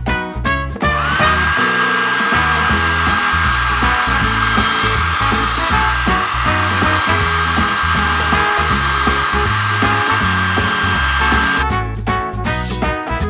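A hair dryer running: a steady rush of air with a high whine that rises as it starts about a second in, then cuts off suddenly near the end.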